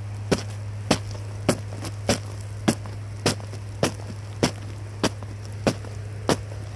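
Footsteps crunching through a thin crust of ice on top of wet, melting snow, one sharp crunch per step at a steady walking pace of a little under two steps a second.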